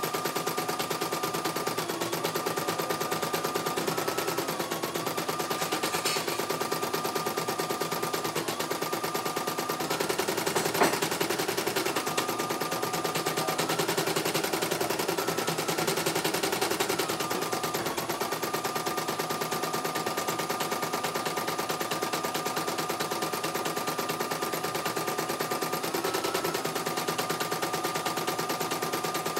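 CNY E900 portable computerized embroidery machine stitching a test design at speed: a fast, steady needle rattle with a motor whine that dips in pitch now and then. A single sharp click about eleven seconds in.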